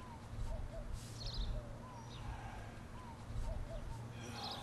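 Birds chirping: quick clusters of high chirps and short repeated call notes about once a second, over a low steady rumble.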